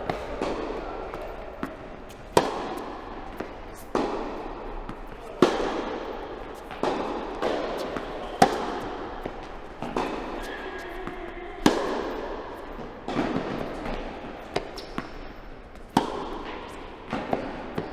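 Tennis rally in a reverberant indoor hall. A tennis ball is struck by rackets and bounces on the court, giving one sharp pop about every second and a half, each echoing off the hall.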